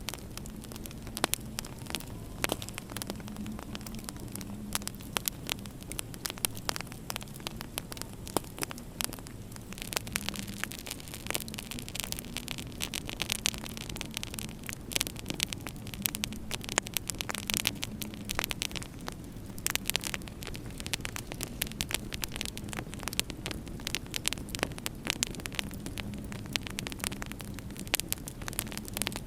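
Wood fire crackling in a fireplace: many sharp irregular pops over a steady low hum, with a hiss that swells through the middle.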